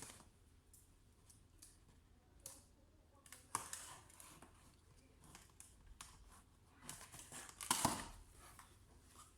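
Laptop box being opened by hand: scattered clicks, scrapes and rustles of cardboard and packaging, loudest about three and a half seconds in and again near eight seconds.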